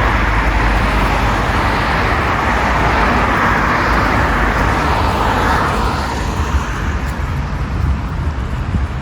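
Road traffic: a vehicle's tyre and engine noise passing close by and fading away about six seconds in, over a steady low rumble.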